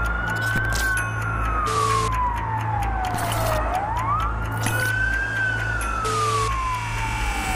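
An emergency siren wailing in slow cycles. The pitch rises quickly and then falls slowly, about twice, over a low pulsing drone.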